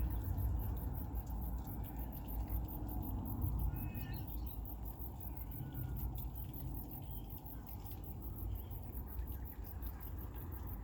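Suburban outdoor ambience: insects chirping in a steady, fast, even pulse, with a bird calling briefly about four seconds in and faintly again a little later, over a low steady rumble.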